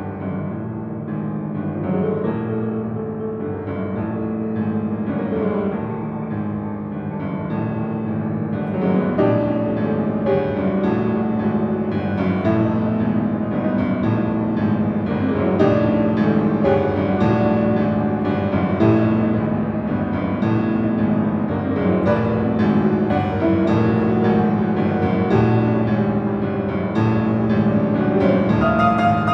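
Grand piano played solo: a dense, fast passage over a steady repeated figure in the low register, growing louder about a third of the way through.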